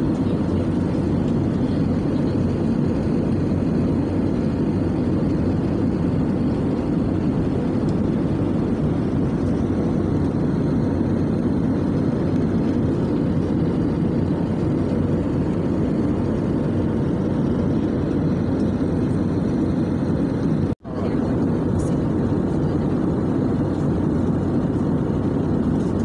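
Steady cabin noise of an Airbus A320-family jet airliner in cruise, the engines and rushing airflow heard from inside the cabin. It cuts out for an instant about three-quarters of the way through.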